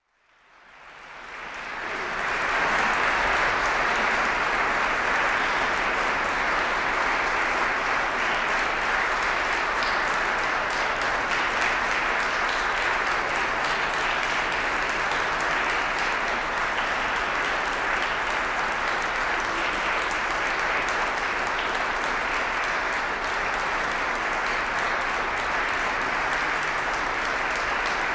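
An audience applauding: the clapping swells over the first two seconds, then holds steady.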